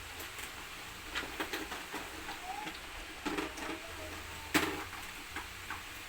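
Scattered light clicks and taps of small objects being handled and set down, irregular, with the sharpest tap about four and a half seconds in.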